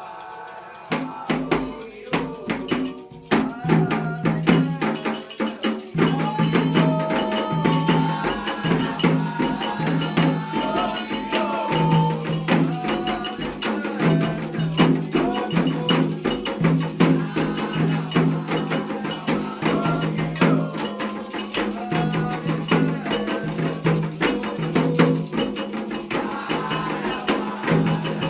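Candomblé ritual percussion: atabaque hand drums beating a dense rhythm with a metal agogô bell, and voices singing over them. The drumming comes in loudly about a second in.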